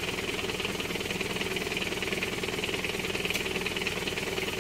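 A vehicle engine idling steadily close by, with a fast even pulse of firing strokes under a steady high drone.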